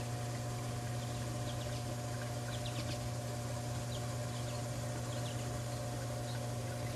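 Dolphin robotic pool cleaner running underwater: a steady motor-and-pump hum, muffled by the water, with a few faint high ticks from the cleaner as it crawls along the pool floor.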